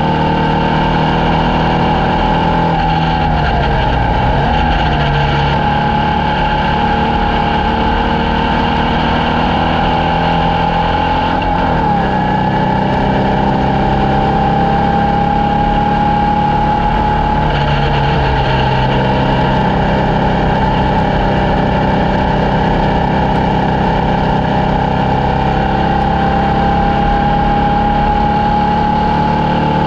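Formula Vee race car's air-cooled Volkswagen flat-four engine running hard at high revs. Its pitch dips sharply and climbs back twice, about four and twelve seconds in, as the car lifts off and changes gear, then rises slowly near the end as it accelerates.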